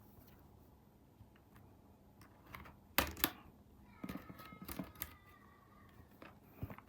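The plastic bottom case of an ASUS E410M laptop being pried open with a plastic pry tool. Scattered sharp plastic clicks sound as the case's latches give, the loudest about three seconds in and several more a second or two later.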